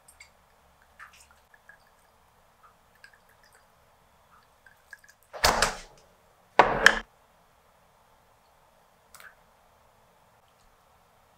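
Seasoning bottles being handled on a kitchen worktop: scattered light clicks and taps, then two loud, short noisy bursts about a second apart a little past halfway.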